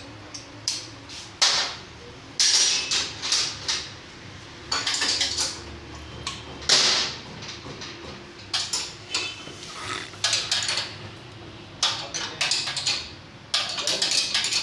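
Irregular metallic clinks, clanks and short scrapes of hand tools and metal parts being handled during work on a motorcycle.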